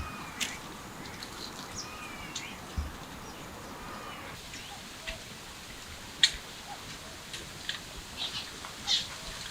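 Kitten mewing in short, high, wavering calls over the first few seconds, followed by scattered sharp clicks and ticks.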